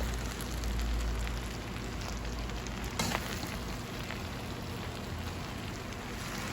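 Stir-fried rice noodles and vegetables sizzling gently in a pan over low heat, a soft steady crackle, with one sharp click about three seconds in.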